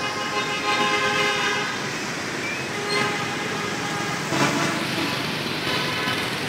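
Busy street traffic of motorbikes and cars, with horns honking: a steady horn for about the first two seconds and another near the end.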